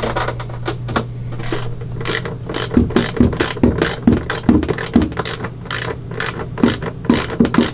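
Hand ratchet clicking in quick runs of short, sharp clicks as nuts are tightened onto the toilet's floor-flange bolts.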